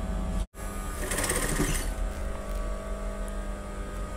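Sewing machine fitted with a single-sided zipper foot, stitching the tape of a zip onto blouse fabric. The motor hums steadily, and from about a second in the needle runs in a fast rattling stitch. The sound drops out for an instant about half a second in.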